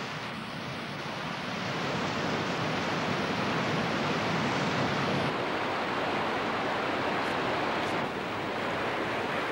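Overlander Falls on the Fraser River: the steady rush of a big waterfall and whitewater, growing louder over the first two seconds.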